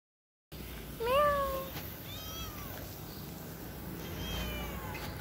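A cat meowing three times: a loud meow about a second in that rises and falls, then two fainter meows.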